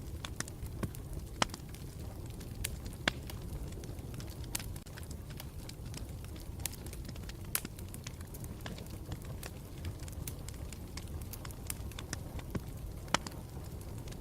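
Campfire burning with a steady low rumble and irregular crackling, sharp pops scattered through it; one louder pop near the end.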